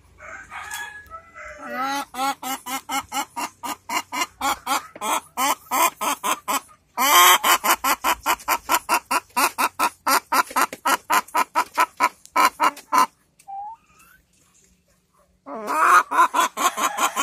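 An ayam kampung (Indonesian village chicken) hen cackling in the nest around laying an egg: a long run of rapid, repeated clucks at about three to four a second, getting louder about halfway through, breaking off briefly, then starting again near the end.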